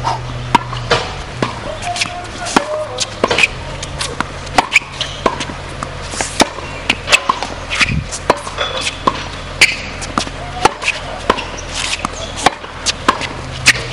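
Tennis rally on a hard court: racket strikes on the ball and ball bounces, a sharp knock every half second to a second.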